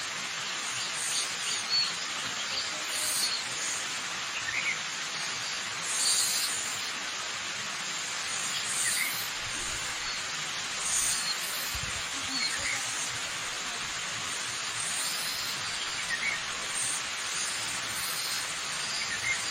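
Waterfall water rushing in a steady hiss, with birds giving short chirps every few seconds over it.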